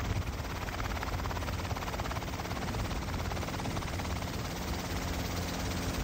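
Helicopter rotor and engine noise heard from inside the cabin: a steady, rapid chopping.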